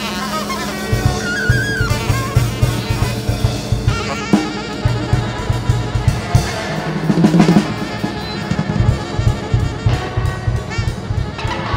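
Live improvised music: a drum kit played busily with sticks in irregular, rapid strokes, under wavering saxophone lines and a steady low drone.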